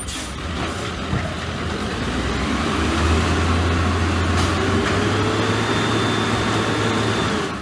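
A machine running steadily, a strong low hum under a rushing hiss, growing louder over the first few seconds and stopping suddenly at the end.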